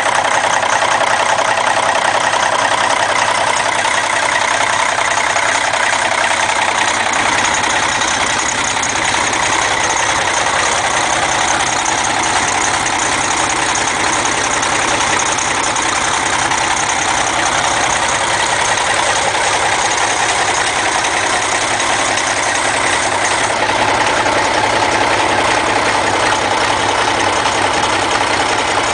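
1972 John Deere 4020 tractor's six-cylinder diesel engine running at a steady idle, heard close to the engine.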